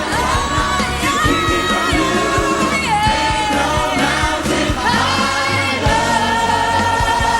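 Background music: a song with singing voices over a steady beat, ending in a long held sung note.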